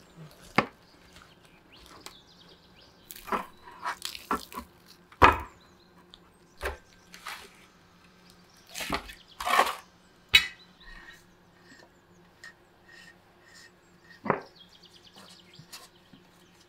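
Irregular sharp knocks of a large knife chopping through a roasted duck onto a metal tray; the loudest comes about five seconds in.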